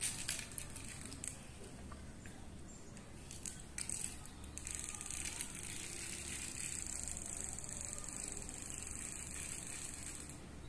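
Small plastic toy helicopter clicking and rattling as it is handled and set down on a tiled floor, then a steady high whir for about five seconds as the toy runs across the floor.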